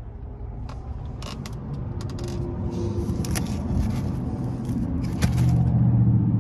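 Handling noise: a run of light clicks and scrapes, with a low rumble growing louder near the end.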